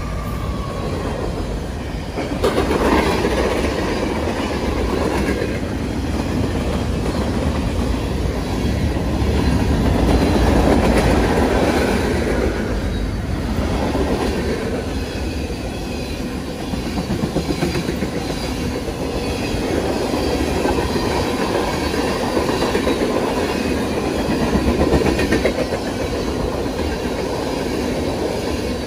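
Freight cars of a passing Norfolk Southern train rolling by at close range: steady rumble of tank cars, a gondola and boxcars, with wheels clacking over the rail joints.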